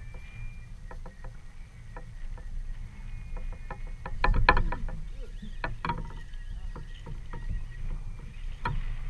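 Small waves lapping against a fishing kayak's hull in a breeze, with scattered light clicks and knocks. A louder cluster of knocks comes about four seconds in.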